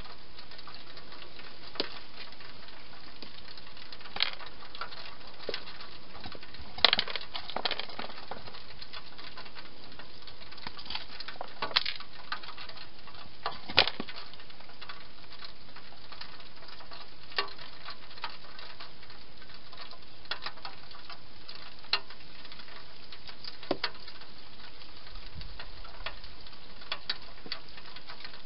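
Wild hedgehog feeding inside a clear plastic feeding station: irregular sharp clicks and taps, some in quick little clusters, over a steady hiss.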